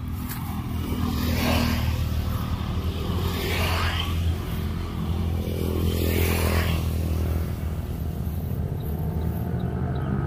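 A small engine running steadily, with three brief swishing noises a couple of seconds apart.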